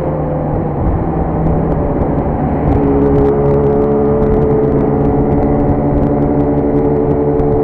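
Motorcycle engine running under way at highway speed, with wind rush; about three seconds in its note settles into a steady, stronger hum at constant revs.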